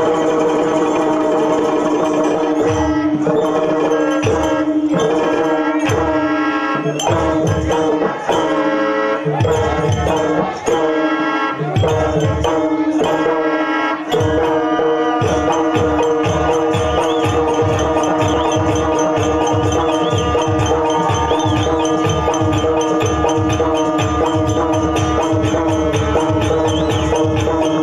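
Live folk music: steady held notes over drum strokes, with the drumming turning into a fast, even beat and jingling on top about halfway through.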